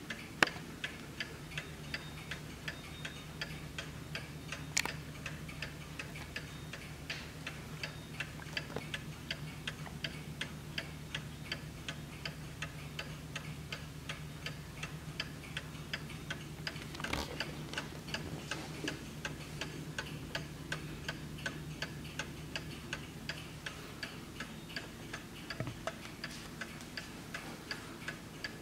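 Kienzle mantel clock's mechanical movement ticking steadily and evenly, with a few louder clicks standing out over the ticks.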